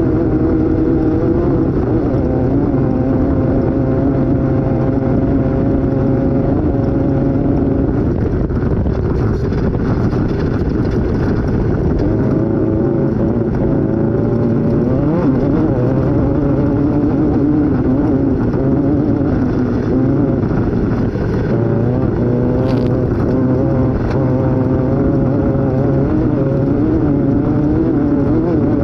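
Off-road race vehicle's engine running at speed, heard from on board, its pitch rising and falling with the throttle. A brief sharp tick comes about three-quarters of the way through.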